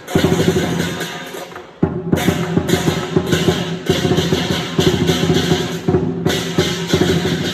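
Lion dance percussion: a large Chinese drum beaten in rapid strokes with crashing cymbals and a ringing gong. The playing comes in loud runs that break off and start again abruptly, once about two seconds in and again about six seconds in.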